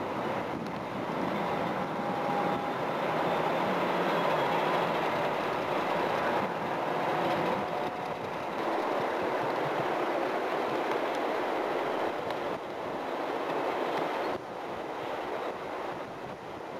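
Illinois Central diesel passenger locomotive running and moving along the track, a steady noisy rumble of engine and wheels. The sound eases off a little near the end.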